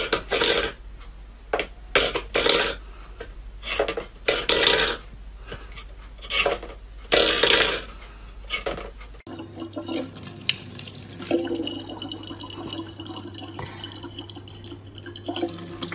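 A metal bowl clattering on a wooden floor as a cat paws at it, in separate short bursts every second or so. About nine seconds in it changes to a thin stream of tap water running into a plastic bottle, with a steady low hum underneath.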